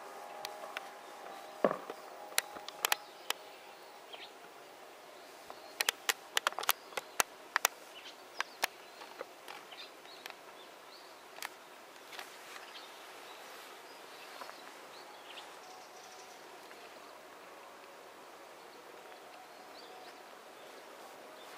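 Quiet outdoor ambience as the last of the loudspeaker chime dies away at the start, with a scatter of sharp clicks or ticks over the first nine seconds, then only a steady low hiss of background noise.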